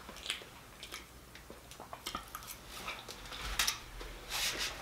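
Metal fork clicking and scraping against glass bowls in scattered light taps, with two sharper clinks in the last second and a half.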